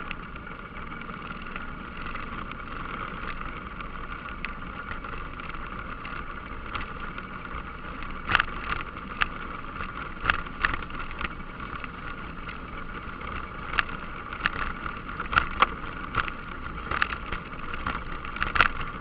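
ATV engine running steadily as the machine drives a gravel trail. From about eight seconds in, sharp clacks and knocks come every second or so as it jolts over rougher ground.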